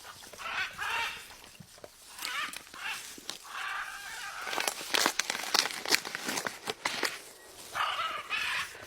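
Small pet parrots (love birds) chirping and chattering in repeated short, shrill calls, with a quick run of sharp clicks about five to six seconds in.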